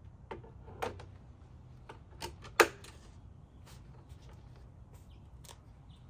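Plastic milk crate fitted onto a MIK quick-release carrier mount: a few light plastic knocks, then one sharp click about two and a half seconds in as it locks into place.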